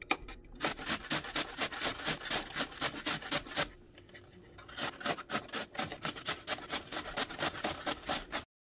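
White daikon radish being grated on a stainless steel box grater: repeated rasping strokes, about four a second, with a pause of about a second near the middle. The strokes stop abruptly near the end.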